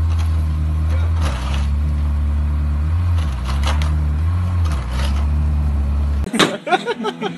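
Ferrari 360 Modena's 3.6-litre V8 idling with a steady low drone. About six seconds in it cuts off abruptly, and sharp knocks and a voice follow.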